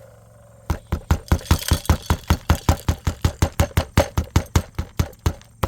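Deer feeder's spinner mechanism running a test cycle, a fast, even rattle of sharp knocks at about six a second that starts just under a second in and stops near the end; the pellet feed keeps clogging the feeder.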